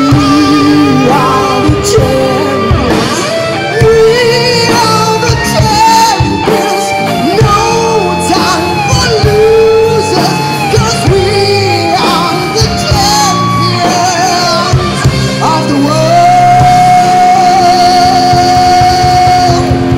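Live rock band playing: a lead singer over electric guitars, bass and drums, ending on a long held note in the last few seconds.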